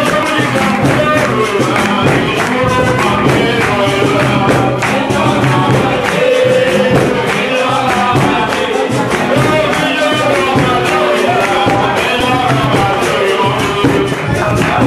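Live capoeira roda music: group singing over a steady, fast rhythm of pandeiro strikes and handclaps.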